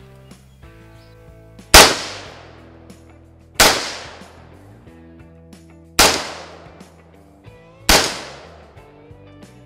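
Armalite Eagle Arms Eagle-15 AR-15 rifle firing four single, deliberate semi-automatic shots about two seconds apart, each crack trailing off in a long echo.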